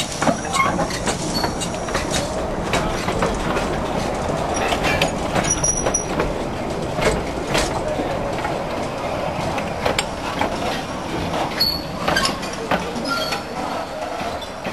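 A narrow-gauge steam train's coaches rolling slowly past at close range, with a steady rumble and irregular clicks and knocks from the wheels over the rail joints.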